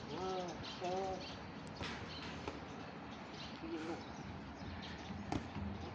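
Small birds chirping in the background, with two short calls about a second apart near the start and a single sharp smack of a boxing glove on a focus mitt a little past five seconds in.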